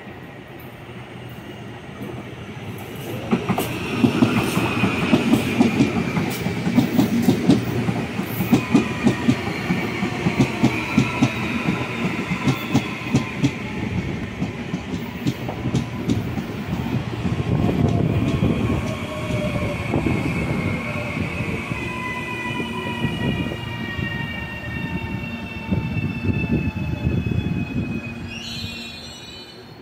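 Electric commuter train passing close by: wheels clacking in a quick, even rhythm over the rail joints, over a high whine that slowly falls in pitch. It builds up a few seconds in and dies away near the end.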